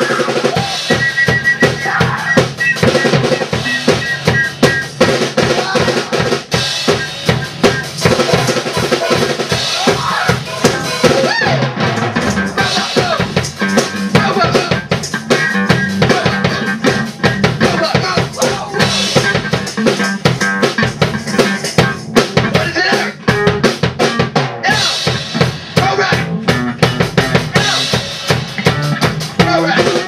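Rock drum kit (Pearl) played fast and hard, with closely packed strikes on the snare, bass drum and cymbals, under electric guitar, in a loud amateur garage-band jam.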